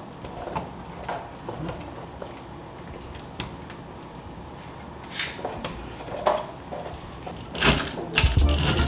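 Scattered light knocks and clicks as a metal shelf bracket and a small spirit level are handled and pressed against a wall. Near the end a louder, steadier sound comes in.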